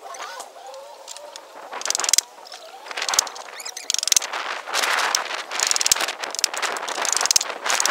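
A hand tool working a wooden formwork plank: a run of rasping strokes of uneven length, starting about two seconds in.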